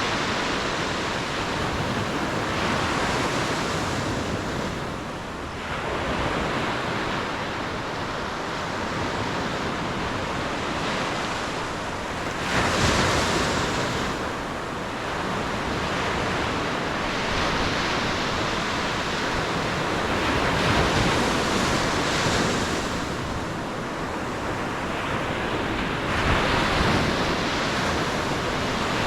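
Ocean waves breaking and washing on a beach, a steady surf rising and falling as each wave comes in, with the strongest breaks about halfway through and near the end. Some wind buffets the microphone.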